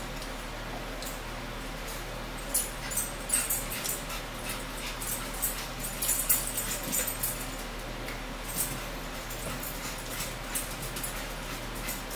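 Eating sounds: chewing and lip-smacking with light clicks of forks on plates, coming in short scattered clusters over a steady low hum.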